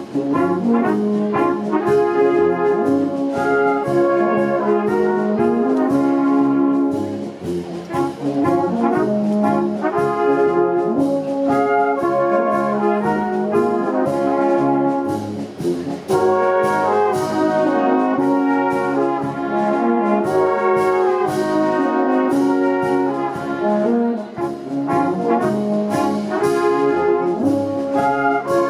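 Brass band music: a melody on brass instruments over a steady beat.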